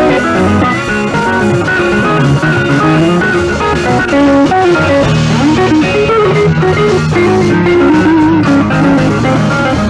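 A blues-rock band playing: an electric guitar picks a melodic line over bass guitar.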